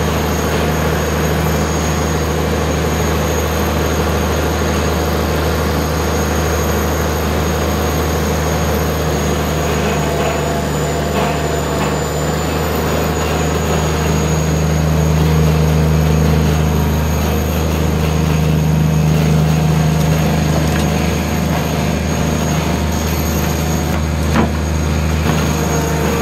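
Cummins L10 diesel engine of an old excavator running steadily, picking up a little in speed and loudness about halfway through before settling back, with a thin steady high whine over it.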